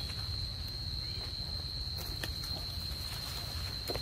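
Insects droning in the trees, a steady high-pitched single tone, over a constant low rumble, with a few faint clicks.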